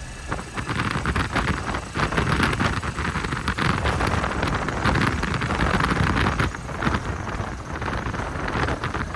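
Small Cub-style light aircraft's engine and propeller running at high power during a takeoff roll on grass, heard from inside the cockpit with wind rushing over the microphone. It gets louder about half a second in and stays loud.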